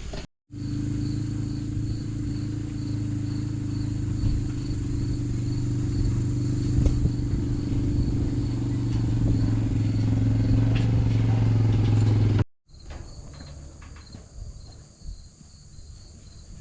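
A vehicle engine running steadily at an even pitch, cut off abruptly after about twelve seconds and followed by quieter outdoor ambience. Insects chirp in an even pulse throughout.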